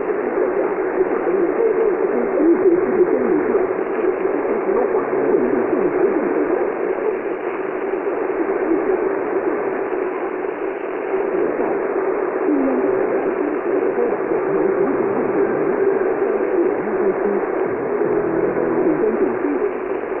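Shortwave radio receiver tuned to a weak AM broadcast on 12500 kHz: steady static and hiss, audio cut off above about 3 kHz, with a faint voice barely showing through the noise.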